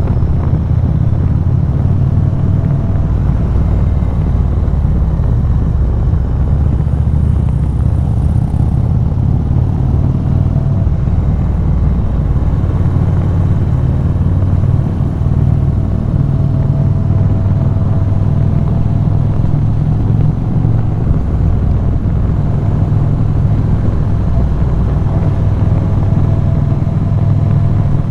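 Indian V-twin cruiser motorcycle engine running steadily while being ridden, with a faint tone that rises slowly in the second half.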